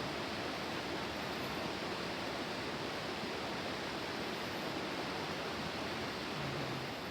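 Steady rushing of running water, an even noise with no breaks or changes.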